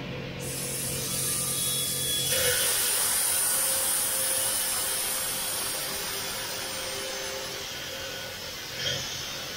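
K9 crystal ball pressed against a spinning wet grinding wheel, giving a steady hissing grind of stone on glass. The grinding noise swells about half a second in, is loudest about two to four seconds in, then eases, with a short knock near the end.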